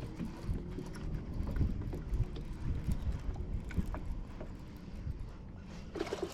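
Steady low rumble of wind and water around a small fishing boat on a lake, with a few faint ticks.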